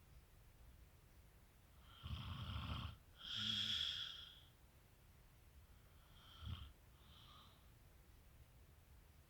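A man snoring in his sleep: a loud, rough snore on the in-breath about two seconds in, followed at once by a long breathy out-breath. A shorter, softer snore and out-breath come a few seconds later.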